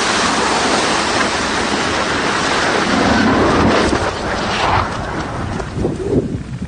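Loud rushing roar of a concrete reservoir tower's demolition collapse, dust and debris. It eases off about four and a half seconds in, leaving a lower, uneven rumble.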